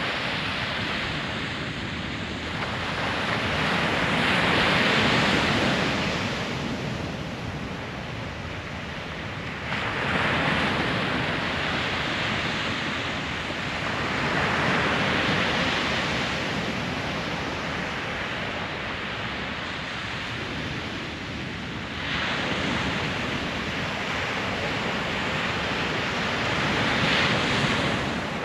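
Pacific Ocean surf, waves breaking and washing in, swelling and fading about every five or six seconds.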